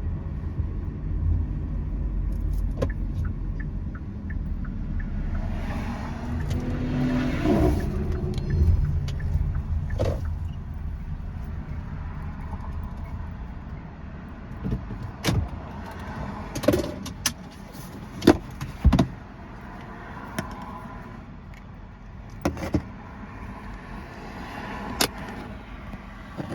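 A car engine running with a low rumble that fades over the first dozen seconds, followed by a series of sharp clicks and knocks.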